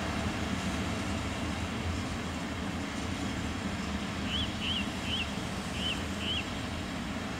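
Freight train's open-top coal wagons rolling away on the rails: a steady low rumble of wheels on track. About halfway through, five short high chirps sound over it.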